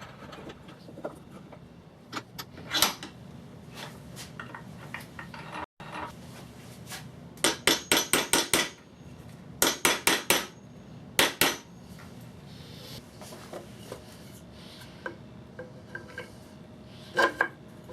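Hammer knocking on wooden fence parts: a few single knocks, then quick runs of sharp strikes in the middle, about five or six in a row, then four or five, then two.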